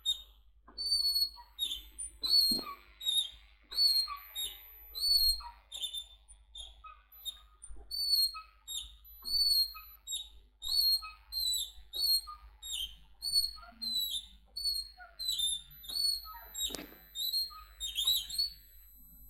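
Squeaky seesaw creaking as it rocks, a high-pitched squeak on each swing, about one and a half a second. There are a couple of dull knocks among the squeaks.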